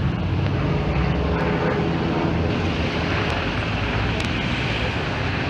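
A steady engine drone with street noise, the hum of motor vehicles or an aircraft engine running continuously without a break.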